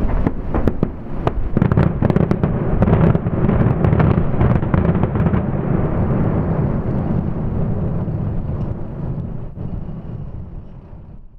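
The tail of a fireworks finale: crackling stars and the last shell reports give sharp cracks that thin out over the first five seconds. Under them runs a steady low rumble that slowly fades away near the end.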